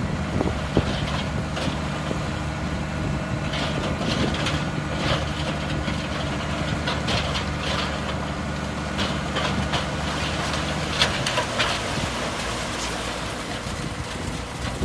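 Heavy construction machine's diesel engine running at a steady idle, with scattered rattles and clanks over it. The engine hum drops away about eleven seconds in.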